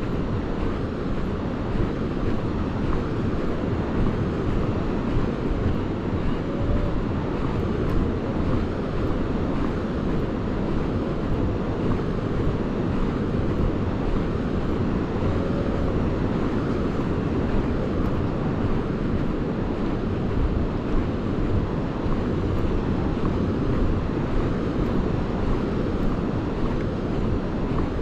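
Steady wind buffeting the microphone with the wash of the sea beneath it, a constant rumbling roar that flutters in level.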